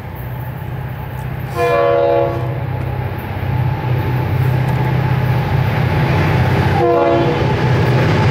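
Approaching freight train led by EMD SD40-2 diesel locomotives, their 16-cylinder two-stroke engines rumbling steadily and growing louder. The locomotive air horn sounds twice for the grade crossing: a short blast about a second and a half in and a longer one about seven seconds in.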